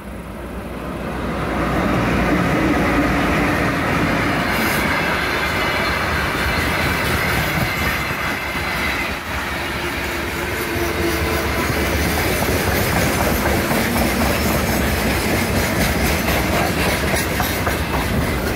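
Soviet-built VL11 electric locomotive hauling a freight train draws level, growing louder over the first two seconds. A long string of open freight wagons then rolls past, their wheels clattering steadily over the rail joints.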